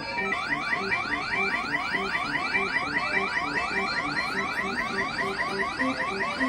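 A claw machine's electronic sound effect plays through its speaker while the claw works: a fast, steady run of rising chirps, about five a second, over a low repeating beep pattern.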